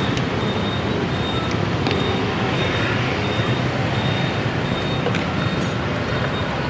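Steady street traffic noise of passing vehicles, with a few light clicks.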